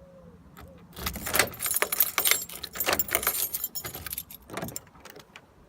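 Light metal jingling and clinking in quick irregular rattles, starting about a second in and stopping shortly before the end.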